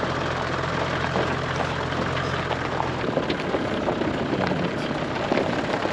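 Toyota Land Cruiser HDJ100 rolling slowly down a gravel track, with stones crackling under the tyres. The low hum of its diesel engine fades about halfway through.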